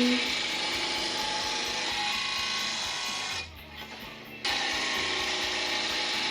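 R.B.G.-2181P blade grinder's wheel sharpening the edge of a lawn mower blade: a steady high grinding hiss that breaks off for about a second a little past halfway, then resumes.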